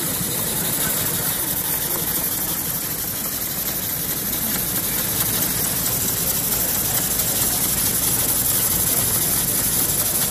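Steady mechanical hum and clatter of running scale-model engines and belt-driven model shop machinery, with a steady high hiss over it.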